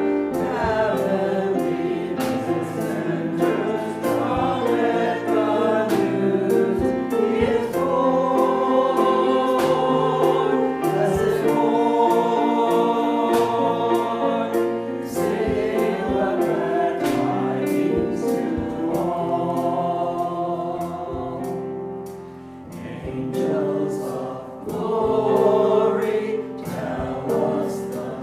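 A choir singing a hymn, sustained chords moving from note to note, with a short break between phrases about three-quarters of the way through.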